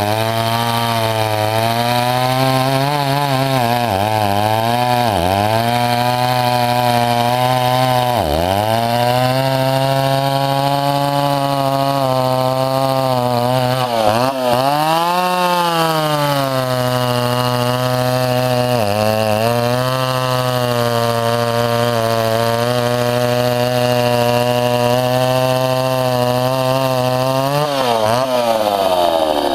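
Vintage Echo CS-60S two-stroke chainsaw running, its engine speed dipping briefly several times and climbing near the end.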